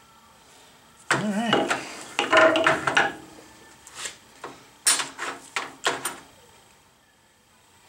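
Metal parts handled: the stepper-motor mounting bracket and its motor scraping and clattering against the lathe as they are lifted off, then five or six sharp knocks in quick succession.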